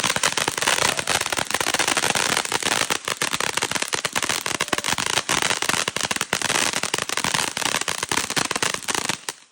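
A ground firework giving a rapid, continuous crackle of many small sharp pops, which cuts off suddenly near the end.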